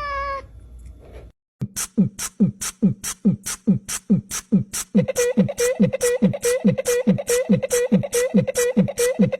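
A cat's meow ends just after the start. Then a music track with a fast, even beat begins: deep dropping kick drums and sharp high ticks, about three a second, with a held note joining about halfway through.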